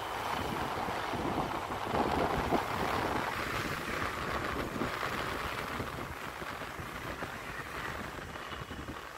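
Wind rushing over a moving phone's microphone with vehicle and road noise beneath, as it travels along a city street. The rush is loudest two to three seconds in and eases off a little near the end.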